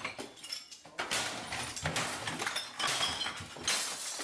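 Scattered clinks and light knocks in a bar's background noise, irregular and unevenly spaced.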